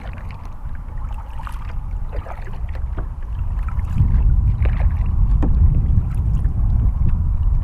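Double-bladed kayak paddle stroking the water, the blades dipping and dripping, under a low wind rumble on the microphone that gets louder about halfway through.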